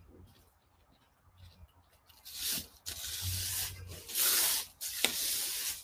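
Gloved fingers rubbing and pressing powdery bath bomb mixture into a small plastic flower-shaped cookie cutter on paper: dry rubbing, scraping sounds in four or five short bursts, starting about two seconds in.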